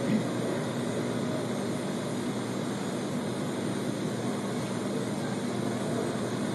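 Steady hiss with a faint low hum from an old recording, with no recitation.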